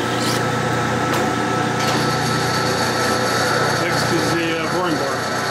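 Metal lathe running steadily while an 11/16 twist drill fed from the tailstock drills into a spinning steel blank, with a constant motor and gear hum. Short wavering squeals from the cut come between about four and five seconds in.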